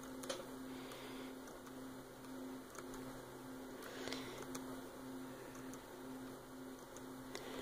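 Faint computer mouse clicks, a handful spaced a second or more apart, the loudest about halfway through, over a steady low room hum.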